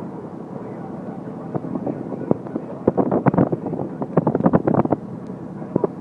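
Boat engine running at a steady drone, with a burst of sharp crackling knocks about halfway through.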